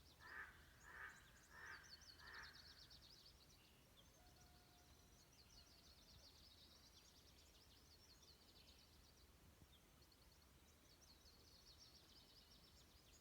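Faint dawn birdsong: small birds sing rapid high trills in repeated runs. In the first few seconds four lower, louder calls come about two-thirds of a second apart.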